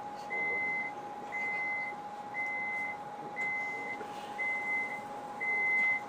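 Door-closing warning beeps of a Lastochka (Siemens Desiro RUS) electric train: six even high-pitched beeps about a second apart, signalling that the doors are about to close before departure. A steady high hum from the train runs underneath.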